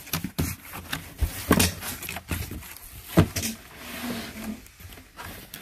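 Cardboard shipping box being opened and handled: irregular knocks, scrapes and rustles of cardboard, the loudest about one and a half, two and a quarter and three seconds in.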